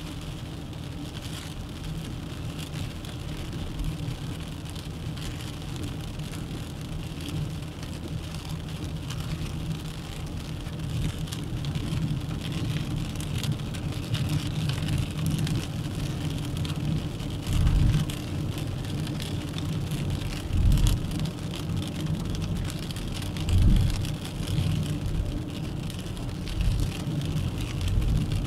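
Steady road and engine noise of a Dacia Duster 1.3 TCe 4x4 driving along, with a few short low thumps in the second half.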